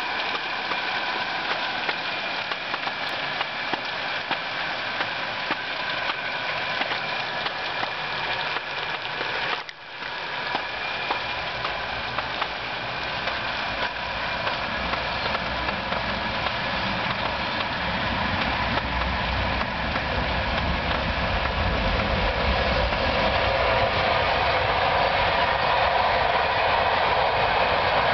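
Steady rain falling. A passing train's low rumble builds from about halfway through and grows louder toward the end as it goes by.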